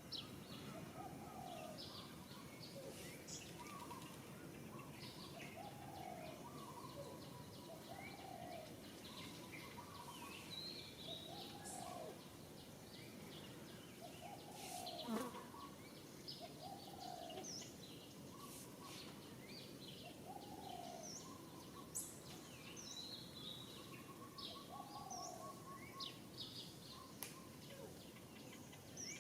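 Outdoor ambience of birds calling: a low call repeated every couple of seconds over many short high chirps, with a faint steady hiss. A single brief knock about halfway through.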